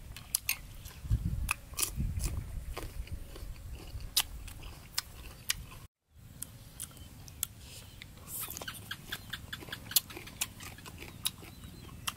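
Close-miked eating sounds: chewing and crunching fresh vegetables and chili, with many sharp mouth clicks and smacks. The sound drops out completely for a split second about halfway through.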